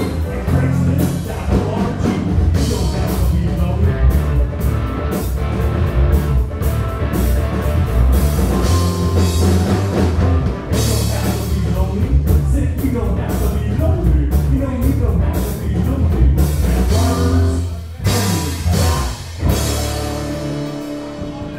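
Live rock band playing: electric guitar, bass guitar and drum kit, with sung vocals. Near the end the playing breaks into a few separate hits, then a held chord rings out and fades.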